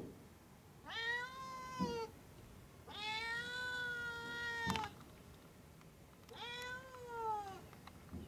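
Domestic cat meowing three times through a glass door, long drawn-out calls with the middle one the longest, asking to be let in. A couple of faint clicks fall between the calls.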